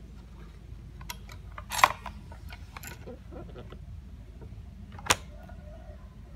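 Clicks and knocks of a guitar and its hard case being handled, with a sharp click about two seconds in and another about five seconds in.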